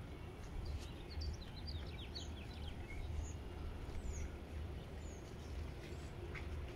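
A small songbird singing a quick run of short, high chirps in the first few seconds, then a few single chirps, over a steady low rumble.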